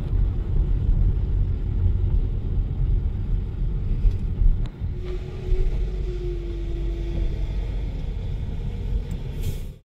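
Split rear-loader garbage truck's diesel engine running with a steady low rumble, a steady whine joining in for about two seconds midway. The sound cuts off abruptly near the end.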